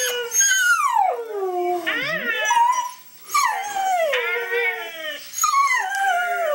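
Cocker spaniel howling: about four drawn-out howls in a row, each sliding down from high to low.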